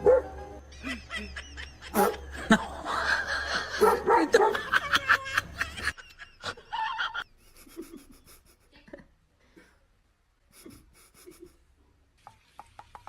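People laughing, with scattered clicks and knocks. The sound changes abruptly about six seconds in and is quieter after that.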